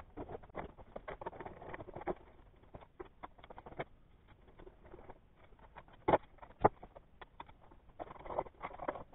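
Sped-up workbench sounds: a rapid scatter of small clicks, knocks and rattles from hands and tools handling an aluminium bracket and its parts, with two louder knocks about six seconds in.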